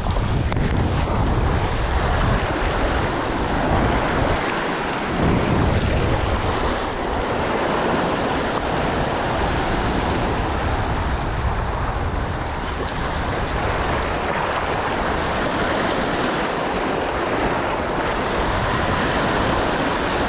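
Surf washing in and out over a rocky shoreline, the sea not rough, with wind rumbling on the microphone.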